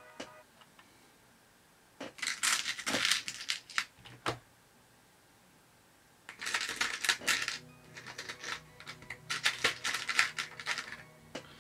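Small stainless steel screws and nuts clinking and rattling in a clear plastic organizer box as a hand rummages through its compartments, in several bursts.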